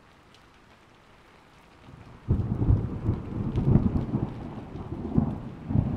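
Steady light rain, then about two seconds in thunder breaks suddenly and loudly and keeps rumbling in uneven peaks over the rain.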